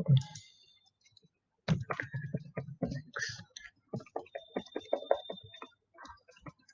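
Computer keyboard keys clicking in a quick run as a password is typed, starting about two seconds in and going on until near the end.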